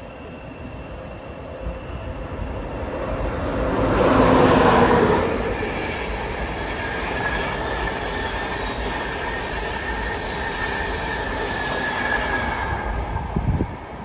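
Intercity passenger train running through a station. It builds to its loudest about four seconds in, then carries on as a steady rush of coaches with a thin, steady high-pitched tone over it. The sound cuts off near the end.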